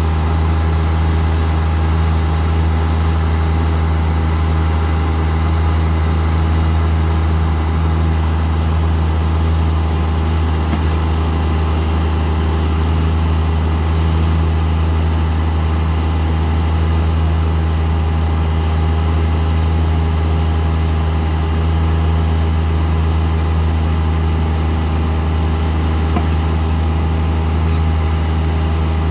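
Bobcat CT1025 compact tractor's diesel engine running at a steady speed while its backhoe attachment works, a constant low drone that doesn't change.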